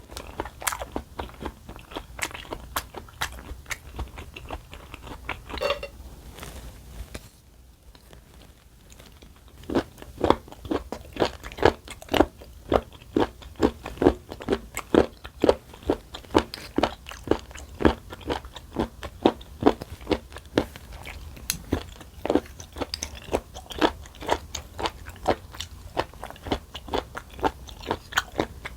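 Close-miked chewing of crunchy food, soft at first, then after a short pause steady, loud crunching chews at about two a second.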